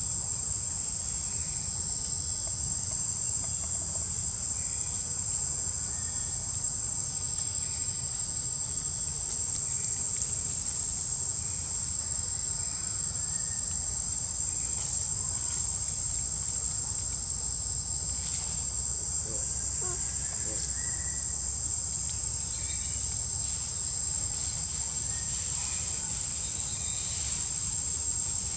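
Insects droning in one steady, unbroken high-pitched tone, over a low steady rumble.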